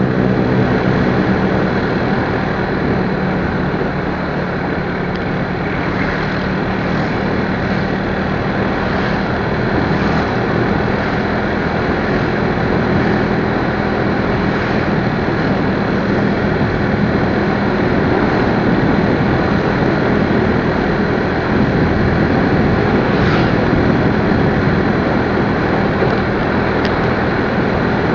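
Motorcycle engine running steadily on the move, its low hum under a loud, even rush of noise.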